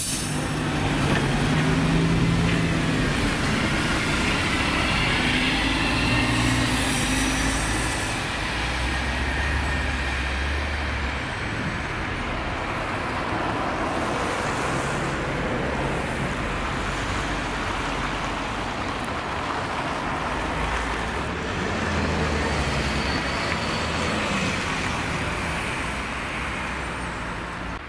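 City buses' engines running as they idle and pull away in slow, stop-and-go traffic: a steady low engine hum under general road noise.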